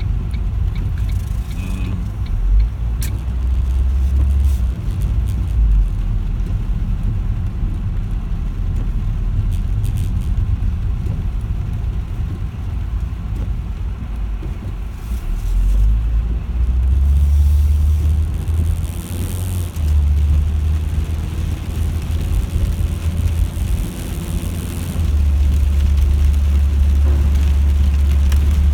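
A car running, a low engine and road rumble that swells and eases several times, with a brief hiss about two-thirds of the way through.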